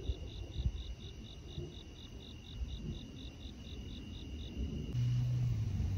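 Crickets chirping in an even rhythm, about four chirps a second over a steady high trill, with irregular low rumbling underneath. The chirping stops about four and a half seconds in, and just after that a loud low steady hum starts suddenly.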